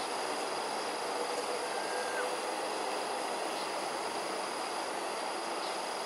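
Steady rushing of water pouring from culvert pipes into a pond, with a faint steady high tone above it.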